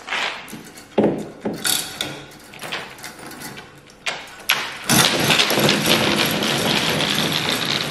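Manual chain hoist being hauled by its hand chain: the links rattle through the block in short pulls at first, then run continuously for the last three seconds or so.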